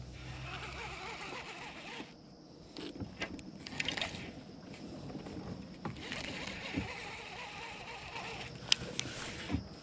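Water sloshing and swishing around a kayak hull, in two longer stretches, with a few sharp knocks near the end.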